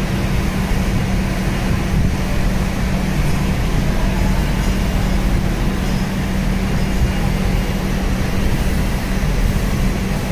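Steady mechanical drone with a constant low hum, unchanging in level.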